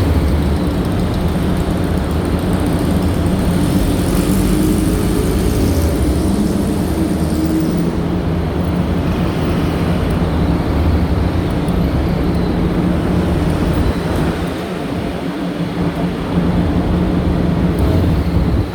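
Vehicle engine running with a steady low rumble, easing off a little about fourteen seconds in, then picking up again.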